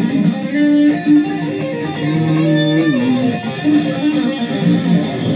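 Stratocaster-style electric guitar playing a melodic riff of picked notes, with one note sliding down in pitch a little past halfway.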